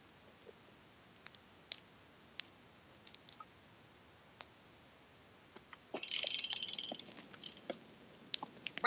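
Neck joints cracking: a quick run of crackling pops about six seconds in, with a few faint isolated clicks before it.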